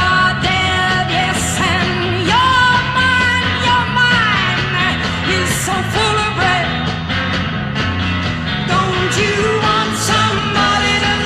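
Psychedelic rock music playing without words: a band with drums and lead lines that bend and waver in pitch.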